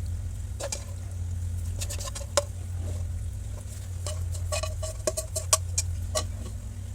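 Scattered light clicks and taps of utensils on cookware, a few with a short ring, over a steady low hum.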